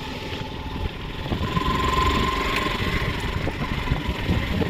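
Motorcycle running as it rides along a rough dirt track, with a low engine rumble and irregular knocks and rattles from the bike.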